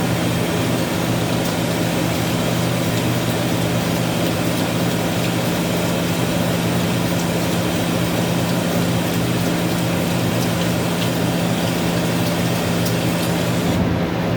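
A kitchen fan running steadily with a low hum and a rush of air, with faint crackles of eggs frying in the pan.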